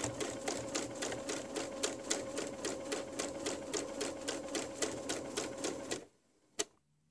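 Domestic electric sewing machine stitching through fabric pieces at a steady speed, about six needle strokes a second over a steady motor hum. It stops about six seconds in, and a single click follows.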